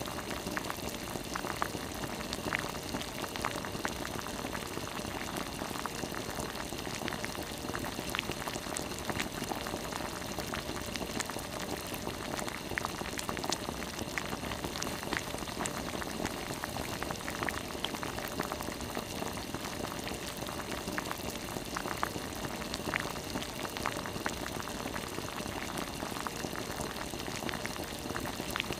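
Spicy red braising broth boiling hard in a pot of gizzard shad, a steady bubbling with many small pops and crackles.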